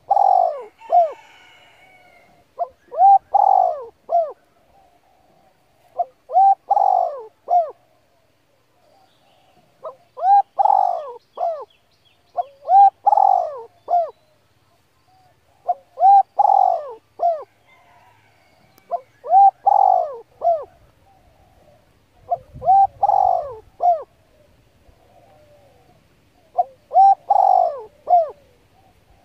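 A bird calling: a short phrase of a few notes, repeated about every three seconds.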